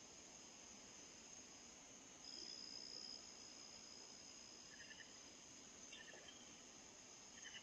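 Faint, steady high chirring of night insects, which swells for about a second near the start. A few short soft chirps come later.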